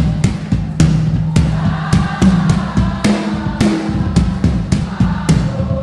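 Live church worship music: a drum kit keeping a steady beat over a held low bass or keyboard note, with a congregation singing along.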